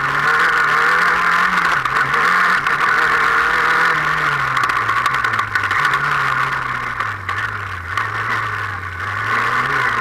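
Off-road race car's engine heard from inside the cockpit, its note rising and falling as the driver accelerates and lifts off. It dips briefly about two seconds in, then the pitch falls slowly through the middle and climbs again near the end.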